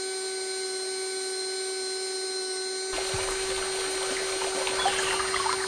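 Small DC motor of a homemade mini water pump running with a steady whine. About three seconds in, water starts pouring from the pump's spout and splashing into the channel below.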